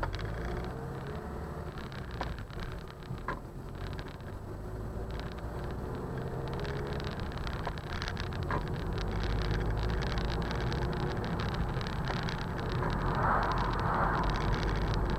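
Car engine and tyre noise heard from inside the cabin, growing louder as the car picks up speed on a straight lane, with a few light knocks or rattles in the first nine seconds.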